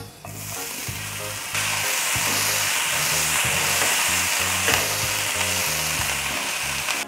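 Freshly washed, still-wet boiled broccoli florets sizzling in hot oil as they go into the pan and are stirred with a spatula. The sizzle swells about a second and a half in and cuts off suddenly at the end.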